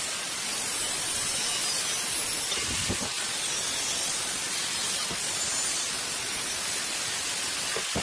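Angle grinder with an abrasive cut-off disc cutting through square steel tube, giving a steady, high, hissing grind of disc on metal.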